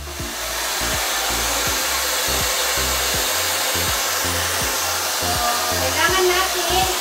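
Hand-held hair dryer blowing steadily, drying long hair fully before it is coloured, over background music with a steady beat.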